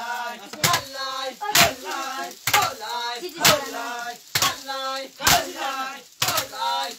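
Wooden sticks beating heaped maize cobs to thresh out the grain: a sharp crack about once a second, seven in all. Between the strikes, men's voices chant in time with the beating.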